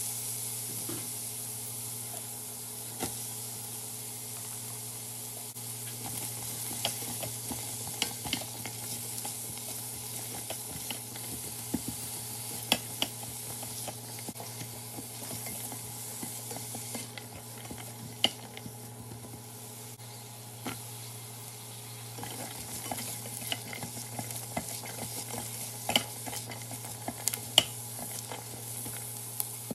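Oil sizzling in a stainless steel pot as ginger, cashews, green chilli and whole spices are sautéed, with a silicone spatula stirring, scraping and clicking against the pot. Onion and then green beans are stirred in; the sizzle eases for a few seconds in the middle and picks up again.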